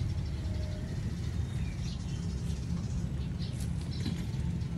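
A steady low rumble, with a few short, faint bird chirps over it.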